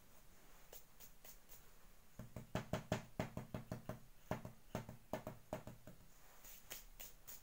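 An irregular run of light, quick taps from fingertips patting loose glitter onto wet paint on a glass pane, starting about two seconds in and thinning out after about six seconds.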